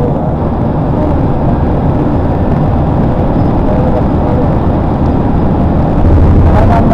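Steady road and engine rumble heard from inside a vehicle moving at highway speed, growing a little louder about six seconds in.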